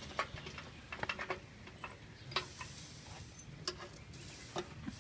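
Irregular light clicks and taps of a hinged sheet-metal cover and its latch being handled on a small harvester's painted steel housing, a few scattered knocks with a quick cluster about a second in.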